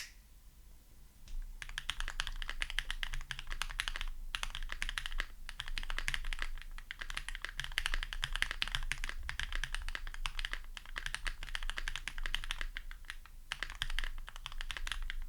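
Fast, continuous typing on a Keychron Q1 aluminium gasket-mount mechanical keyboard, a dense stream of keystrokes with a few short pauses. The case is filled with about 3 mm of foam, so there is little case ping. A single sharp click comes right at the start.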